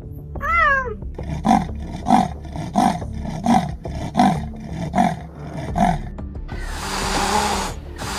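A big cat calls: first a short rising-then-falling call. Then comes a run of about eight evenly spaced rasping grunts, roughly one and a half a second. Near the end there is a harsh, noisy call about a second and a half long. Background music plays underneath.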